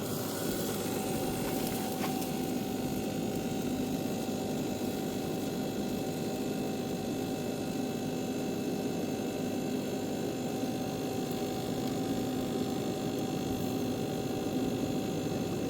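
Steady mechanical hum of a running fan motor, holding a few constant tones, with a light click about two seconds in.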